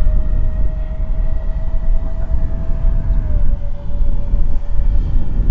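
Twin 50 mm electric ducted fans of a model jet whining steadily in flight, the pitch stepping slightly lower about three seconds in. Wind rumbles on the microphone underneath.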